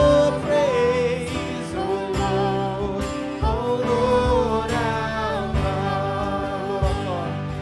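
Christian worship song: a singer's melody over band accompaniment with drum hits.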